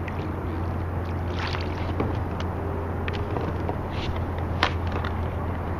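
Water splashing and knocking around a fishing kayak: several short splashes and light knocks, the sharpest about three-quarters of the way through, over a steady low hum.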